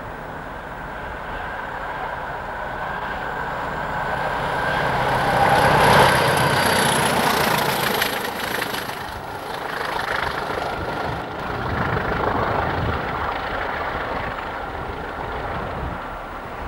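Several British Rail Class 20 diesel locomotives, with English Electric eight-cylinder engines, running and passing. The sound builds to its loudest about six seconds in, then falls away, swelling again a couple of times.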